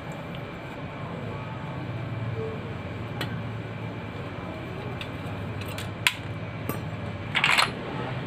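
Small metal clicks and a short scrape as a metal rod and small engine parts are handled at a motorcycle's cylinder head: a faint click about three seconds in, a sharp click about six seconds in, and a brief scrape near the end. A steady low hum runs underneath.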